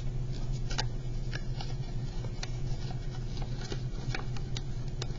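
Origami paper crinkling and rustling under the fingers as it is folded along pre-made creases, with scattered light crackles at irregular moments, over a steady low hum.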